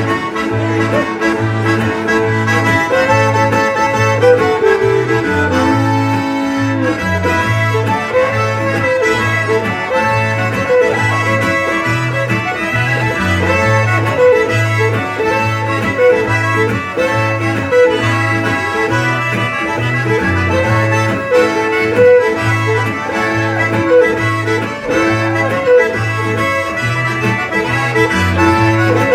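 Live instrumental Cajun band music: a diatonic button accordion leading over fiddle and strummed acoustic guitar, with a steady low beat about twice a second.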